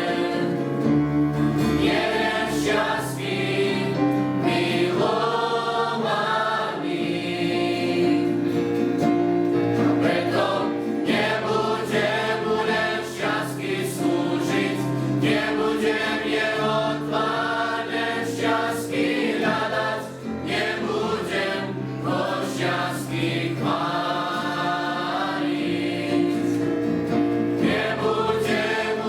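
Youth choir singing a Christian song in Slovak, many voices together holding long sustained notes.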